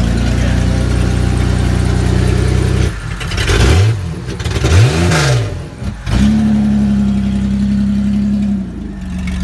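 Car engine running steadily, blipped up and back down twice in quick succession about four and five seconds in, then settling back to a steady run that eases off near the end.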